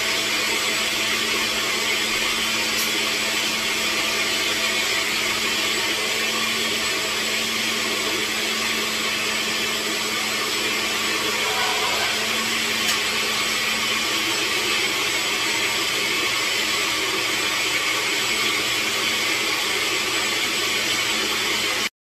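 Countertop blender running steadily on its purée setting, grinding soaked beans and pepper with water into a smooth moi moi batter. Cuts off suddenly near the end.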